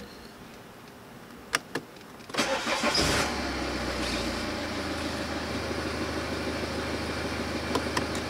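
The BMW 520d's push start button clicks twice, then the starter cranks briefly and the four-cylinder diesel catches and settles into a steady idle. Near the end the button clicks again and the engine cuts off.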